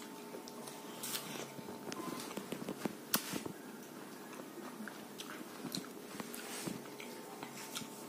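A person biting into and chewing a slice of ripe yellow melon, faint, with scattered small clicks.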